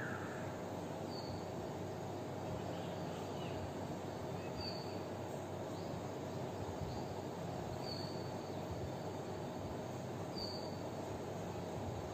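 Steady room noise with a faint hum, broken by four short high chirps a few seconds apart.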